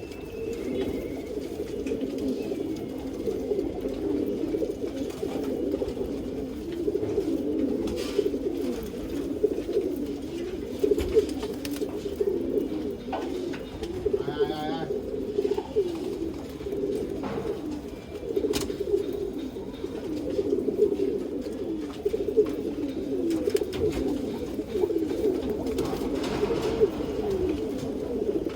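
Many domestic pigeons cooing at once, a continuous overlapping chorus of low coos, with a few sharp clicks and a brief higher call about halfway through.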